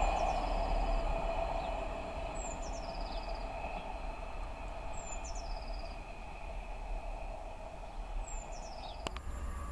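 A Class 158 diesel multiple unit moving away, its running noise fading into the distance. A songbird repeats a short, high, stepped, falling phrase four times, about every two and a half seconds, and there is a single sharp click near the end.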